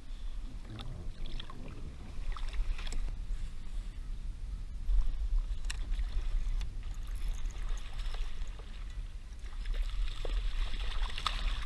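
Paddling and handling sounds from a sit-on-top fishing kayak (NuCanoe Frontier 10): water sloshing, with scattered knocks of paddle and gear against the plastic hull. Near the end there is a burst of splashing on the water.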